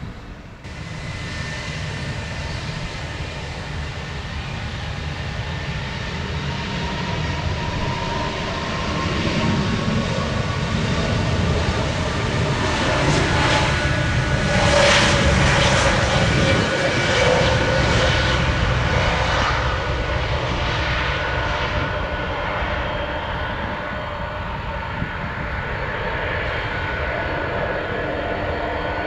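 Jet airliner passing by: the engine roar swells to its loudest about halfway through and then eases off. Engine whines fall in pitch as the aircraft goes past.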